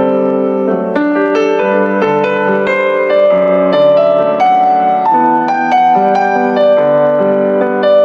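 Background music: a piano playing a gentle melody over sustained chords, notes changing about twice a second.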